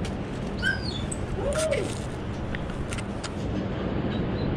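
Steady rush of coastal wind and surf, with a few sharp clicks and a couple of brief high chirps in the first two seconds.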